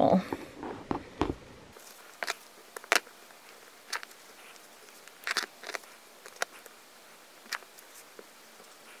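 Small craft iron being pressed and slid over fabric and a paper template, with scattered soft taps and rustles as fingers fold the fabric edge under.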